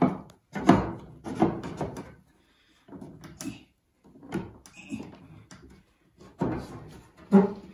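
Wooden futon slats being pushed and shifted in their frame: a series of irregular wooden knocks and scrapes, about nine in all. The slats are a tight fit in the frame.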